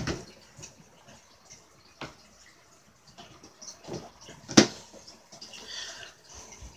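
Handling noise: a few sharp clicks and knocks, the loudest about four and a half seconds in, then a soft plastic rustle near the end as a hand in a clear plastic glove reaches in with tweezers.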